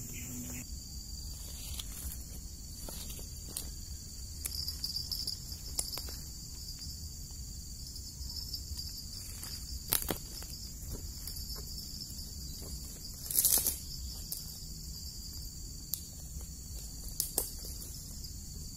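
A steady, high-pitched chorus of insects (crickets) trilling without a break. Over it come a few brief knocks and rustles from footsteps in rubber boots on grass and dry palm fronds.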